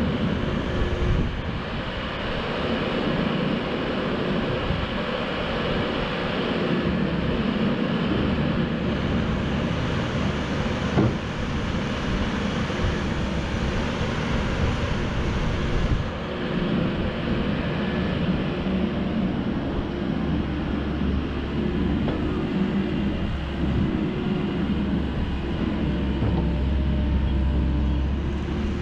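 Diesel engine of a Komatsu PW98MR-6 wheeled excavator running steadily while its hydraulics work the boom, which rises and reaches out with the bucket. The engine note shifts a few times with the hydraulic load, and there is a single sharp knock about eleven seconds in.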